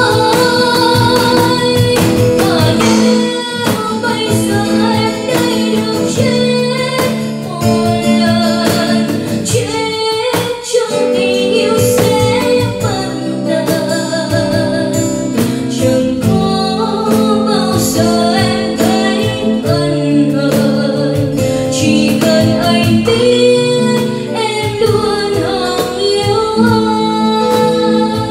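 A woman singing a slow Vietnamese ballad live through a microphone, with a strummed acoustic guitar and a cajón keeping time beneath her voice.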